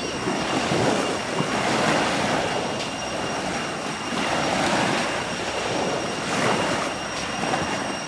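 Surf washing onto a sandy beach: a steady rush of breaking water that swells and eases every couple of seconds. A faint, steady high-pitched tone runs beneath it.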